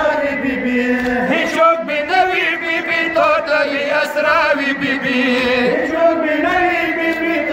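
Men's voices chanting a Pashto noha, a mourning lament, in long held notes that waver and bend in pitch without pause.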